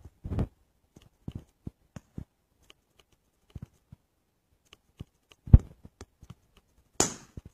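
Shotgun shots at a dove hunt: a shot about five and a half seconds in and a sharper one about a second later, with an earlier report just after the start and small faint pops and clicks between.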